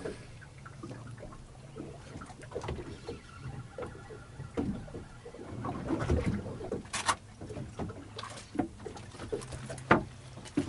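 Boat noise while drifting: water against a fishing boat's hull over a low steady hum, with scattered knocks and clicks from handling gear as a fish is reeled in and lifted aboard.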